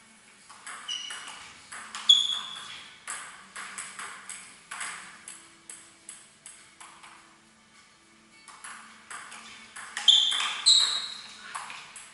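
Table tennis ball being played in a rally: sharp clicks of the ball off the rubber bats and the table in quick alternation, some hits ringing briefly. Play goes quieter a little past halfway, then a last flurry with the loudest hits.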